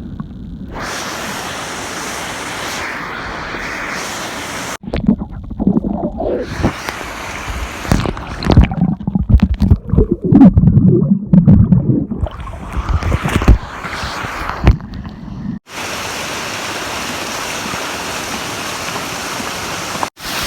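Rushing water of a river below waterfalls, a steady hiss across several cut-together shots. For about ten seconds in the middle a louder, uneven low rumbling takes over, like wind buffeting the microphone.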